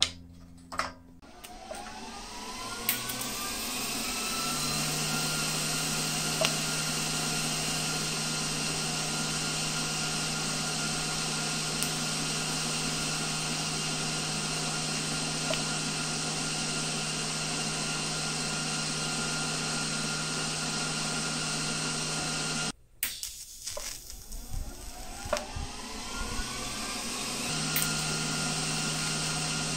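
An electric motor spinning up with a rising whine over a few seconds, then running steadily with a constant hum. It cuts off suddenly about 23 seconds in and winds up again a couple of seconds later.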